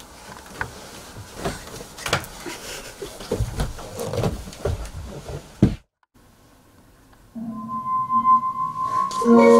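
Rustling and scattered knocks of people moving about on a bed with bedding. The sound drops out suddenly, and a second or so later music with held notes begins.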